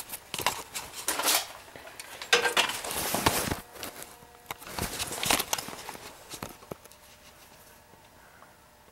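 Handling rustle with scattered light metal clinks and knocks, dying away to quiet for the last couple of seconds.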